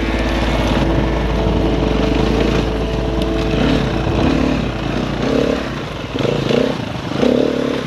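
Dirt bike engine running under the rider. It holds steady at first, then revs rise and fall in short spurts through the second half.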